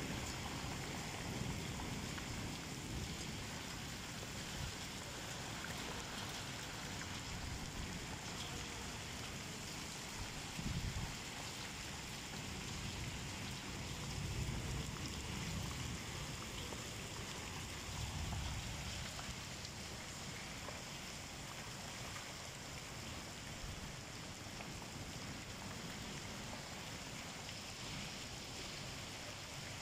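Heavy rain pouring steadily onto standing floodwater and a paved yard, an even hiss, with a few brief low rumbling swells.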